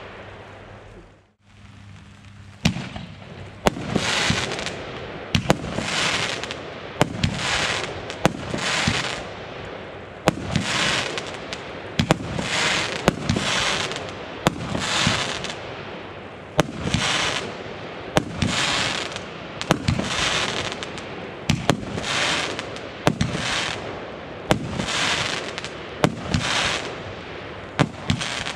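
Consumer firework battery firing shot after shot, about one a second, each sharp report followed by a noisy, high-pitched burst that dies away within a second. It starts after a fading tail and a brief gap near the beginning.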